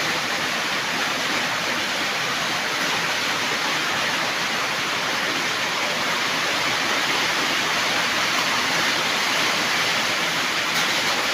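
Toy marble run with a continuous stream of many small balls rolling and clattering down its plastic track, merging into one steady, even rattling rush that holds the same level throughout.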